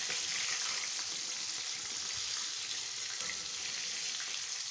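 Flour-coated chicken pieces deep-frying in hot oil in a karahi, a steady sizzling hiss, while a wire-mesh skimmer turns them in the oil.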